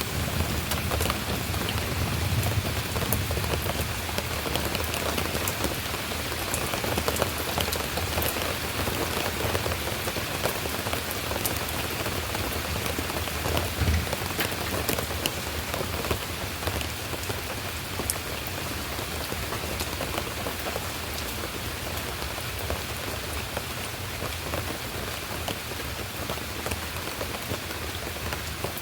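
Steady rain falling, with many single drops ticking through it. A low rumble is stronger in the first few seconds, and a brief low thud comes about 14 seconds in.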